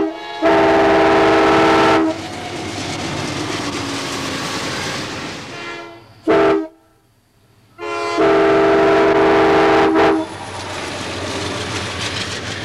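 Five-chime K5LA locomotive air horn blowing a steady chord in three blasts: a long blast of about a second and a half, a short one near the middle, then a long blast of about two seconds. A steady rushing noise runs between the blasts.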